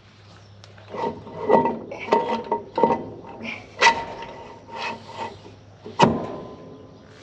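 Cylinder head being lowered and worked down over the head studs onto a Ford 460 V8 block: a string of metal knocks, scrapes and clinks, some left ringing briefly, with the sharpest knocks about four and six seconds in.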